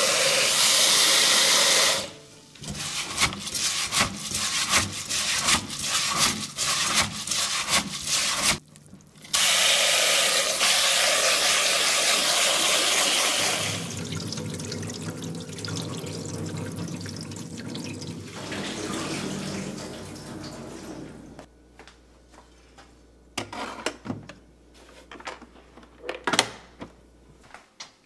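Kitchen tap running into a rice cooker's inner pot, then hands swishing and rubbing the rice in the water with quick irregular strokes. The tap runs again, followed by softer sloshing. A few sharp clicks and knocks come near the end.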